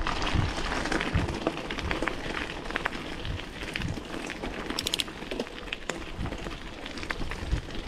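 Bicycle tyres crunching and crackling over a loose gravel trail, with scattered sharp clicks and rattles, a quick cluster of them about five seconds in. Low wind buffeting on the chest-mounted action camera's microphone.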